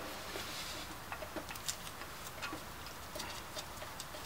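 Faint, irregular light clicks and ticks of a brake caliper and its brake line fitting being handled and moved.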